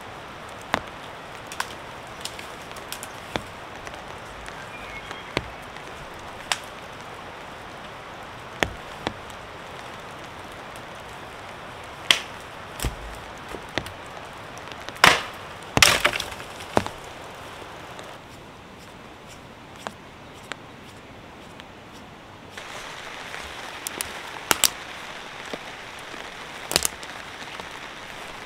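Sticks snapping and knocking together as a fire base is laid: scattered sharp cracks, the loudest bunched together about halfway through, over a steady hiss of rain on a tarp.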